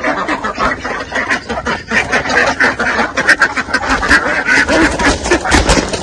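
White domestic ducks quacking, many short calls overlapping one another throughout.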